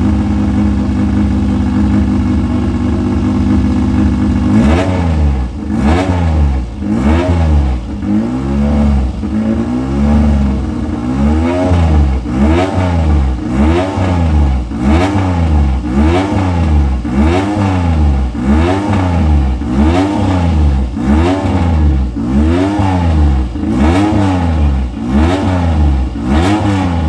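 Motorcycle engine running steadily, then from about four and a half seconds in revved up and let fall back over and over, roughly once a second, before cutting off at the end.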